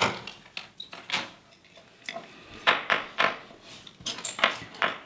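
Small metal and plastic parts and hand tools clicking and clattering in an irregular series of sharp knocks and rattles while wire connectors are fitted.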